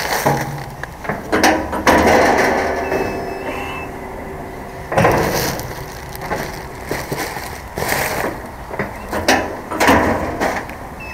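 Drop-in drum of an underground refuse container being swung open by its handle, a full rubbish bag pushed in and the drum turned shut: a series of clunks and scrapes from the metal drum and the bag.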